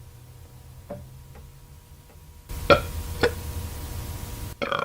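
A woman burping: two short, sharp burps about half a second apart over a background hiss, then a longer burp starting near the end, after a couple of seconds of faint ticks.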